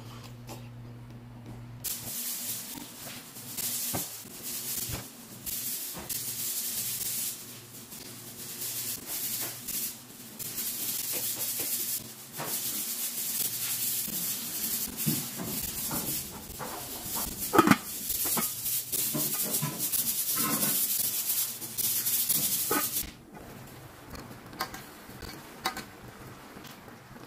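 Kitchen cooking sounds in short edited clips: a loud hiss with clicks and clatters through most of it, which stops suddenly near the end. It gives way to quieter small ticks while chicken pieces simmer in sauce in a steel pot.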